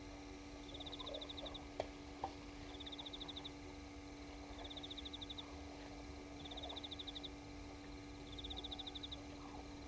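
A small night creature calling: a high, rapid pulsed chirp repeated about every one and a half to two seconds, over a steady low hum. Two sharp clicks come about two seconds in.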